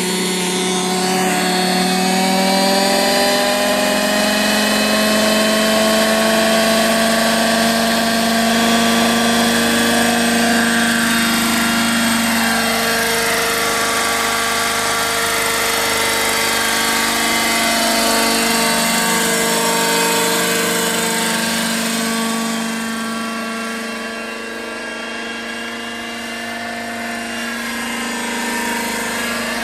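Radio-controlled model helicopter's glow (nitro) engine and rotors spooling up, the whine rising in pitch over the first few seconds. It then runs at a steady high whine as the model hovers and flies, with small pitch shifts, and grows a little fainter near the end.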